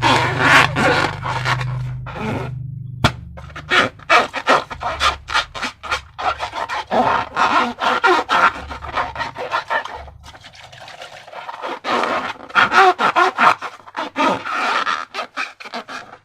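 Slime being squished and mixed, making a run of wet, sticky squelches and crackles in irregular clusters, with a short lull about two to three seconds in.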